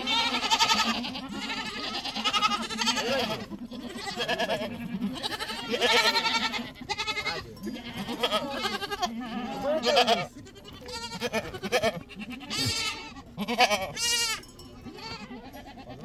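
A flock of goats bleating, with many quavering calls overlapping one after another.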